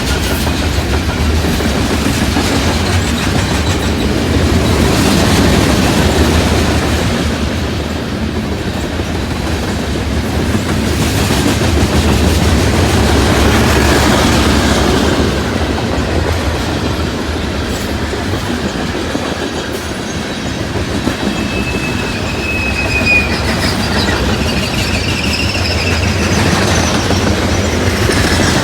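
Loaded coal hopper cars of a freight train rolling past: a steady heavy rumble with clickety-clack of wheels over rail joints, swelling and easing. Brief thin wheel squeals come in near the end.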